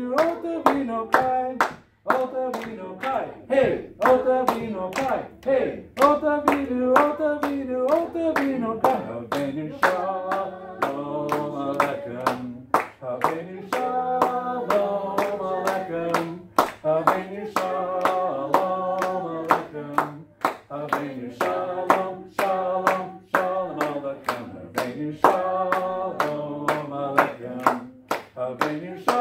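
Hands clapping a steady beat, about two claps a second, in time with a sung worship song.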